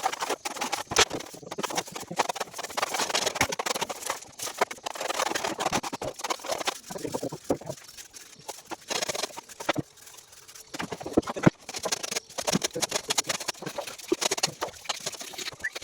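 Irregular tapping and scraping of hand tools working on an arch under construction.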